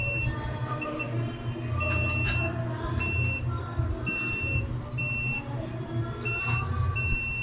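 OWON XDM1041 bench multimeter's continuity beeper sounding in about eight short, high beeps of uneven length as the test probes touch and part. Faint background music underneath.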